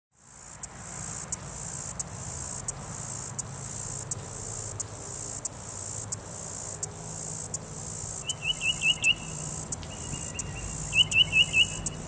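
Summer insect chorus: a steady high buzz with a regular pulse about every two-thirds of a second. From about eight seconds in, a songbird joins with short phrases of four quick repeated notes, twice.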